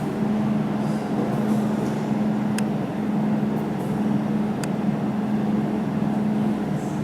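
Steady hum of a jewelry laser welding machine running, with a few sharp ticks as laser pulses fire while welding silver.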